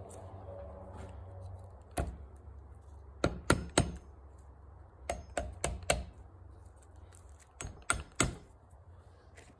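Hammer tapping wooden spawn dowels into drilled holes in a white oak log: a single sharp tap, then three groups of about three quick taps, each group driving a plug in until it sits.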